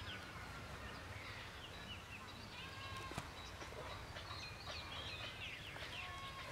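Many small birds chirping and twittering in quick, overlapping calls, with a single soft knock about three seconds in.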